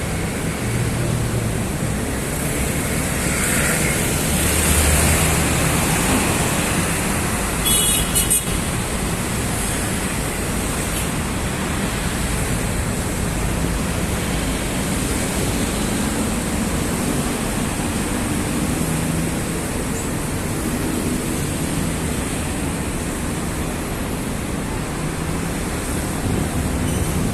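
Steady city road traffic: a continuous wash of passing vehicles and engine rumble, heavier in the first few seconds, with a brief sharp high-pitched sound about eight seconds in.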